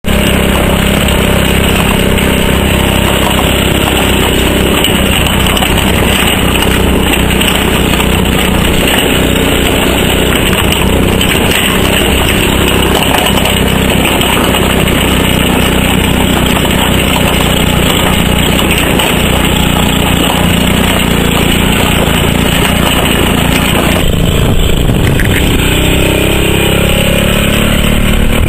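Dzik 2 single-axle walking tractor's engine running steadily as it pulls a trailer loaded with straw bales. About 24 seconds in the sound changes, and near the end the engine note rises.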